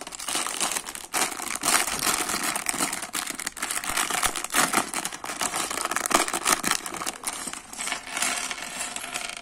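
Clear plastic LEGO parts bag crinkling and rustling as it is handled and worked open, with small plastic bricks clicking inside it. The crinkling stops near the end.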